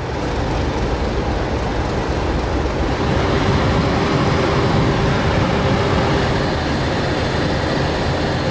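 English Electric diesel-electric locomotive engine idling in a steady low rumble, with a humming tone that comes in about three seconds in and drops away a few seconds later.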